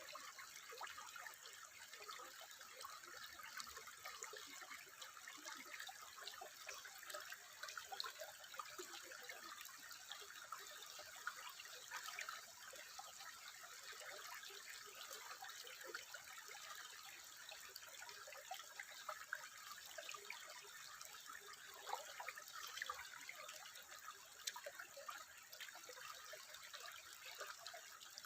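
Water trickling steadily and faintly, a continuous patter of many small drips and splashes with no single larger plop.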